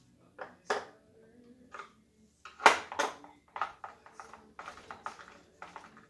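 Screwdriver and hand tapping and clicking on the plastic housing of a pancake air compressor while its screws are driven in: a string of sharp, irregular clicks and knocks, the loudest a little under three seconds in.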